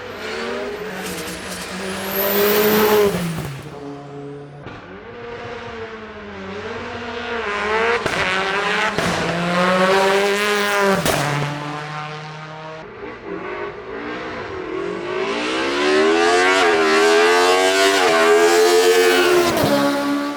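Hillclimb race car engine accelerating hard, its pitch climbing and dropping back again and again as it shifts up through the gears.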